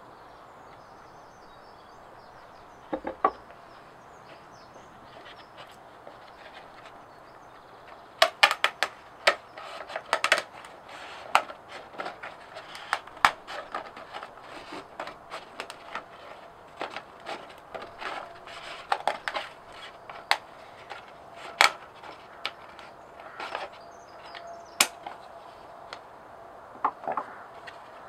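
Scissors cutting through stiff birch bark: a long run of sharp, irregular snips and crackles starting about eight seconds in, with a couple of knocks earlier.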